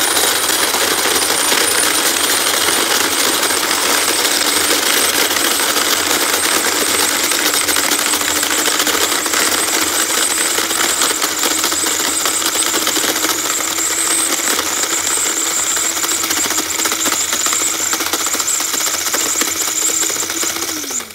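Rival electric ice shaver running steadily, its motor whirring while the blade shaves ordinary ice cubes with a dense, rattling grind. The motor winds down and stops near the end.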